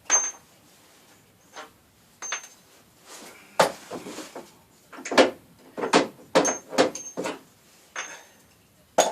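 Irregular metallic clanks and knocks from a wrench being worked on the 19 mm bolts holding a car's front bumper, a few with a short high ring. They come closer together after about three and a half seconds.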